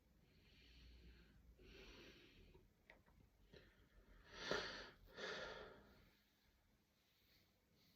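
A person with a bout of hiccups breathing quietly: a few faint breaths, then a louder breath in and out a little over halfway through.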